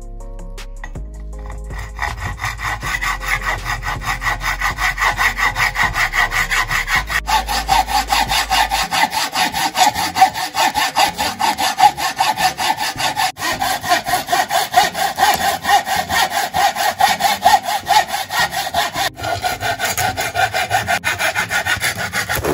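Hand hacksaw cutting through a wooden board in quick, even back-and-forth strokes, starting about two seconds in.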